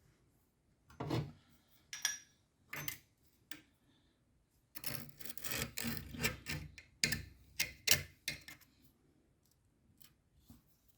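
Soap being worked through a meat grinder: irregular scraping and rubbing with sharp clicks and knocks. It starts as separate strokes and turns into a dense stretch of scraping in the middle, then fades to a few faint ticks near the end.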